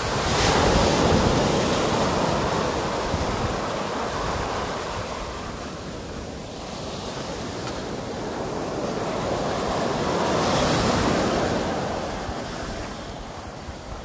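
Sea waves breaking and washing up onto a beach: a continuous surf wash that swells about a second in and again around ten seconds in.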